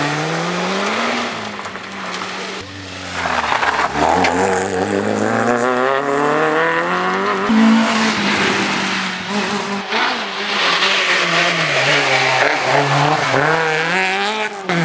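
Rally cars driven hard past the spectators one after another, engines revving up through the gears with a sudden drop in pitch at each shift.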